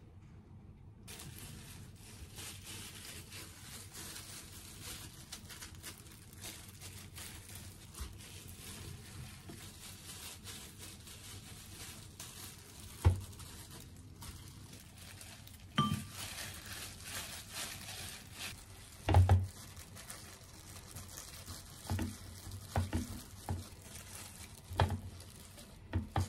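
Plastic-gloved hands rolling croquette balls in flour in a ceramic dish: soft rustling and brushing, with a few soft knocks as the balls and the dish are handled, more of them in the second half.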